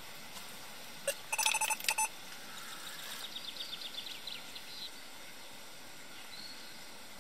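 Electronic carp bite alarm sounding a rapid run of beeps for about a second, starting about a second in: a fish taking line on a run. A quick run of light ticks follows for about two seconds.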